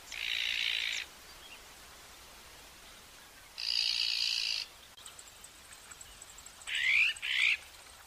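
Iberian magpie giving harsh, rasping calls: two calls about a second long each, then a quick double call with rising sweeps near the end.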